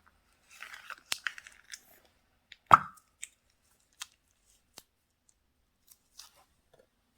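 Slime and its plastic packaging being handled: a brief crinkle, then sharp sticky clicks and one loud pop a little under three seconds in, followed by a few scattered clicks.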